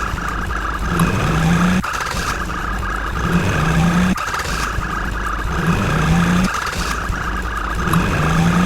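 A looped mechanical, motor-like sound effect: a dense running noise with a steady higher buzz, repeating about every two and a half seconds, each repeat ending in a short low tone that rises and holds.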